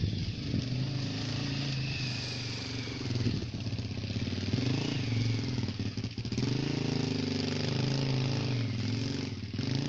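A dog growling continuously as it tugs on a toy, a low wavering rumble broken briefly twice for breath.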